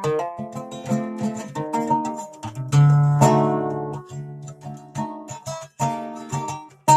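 A plucked string instrument playing picked notes and chords, with a loud strummed chord about three seconds in and another near the end.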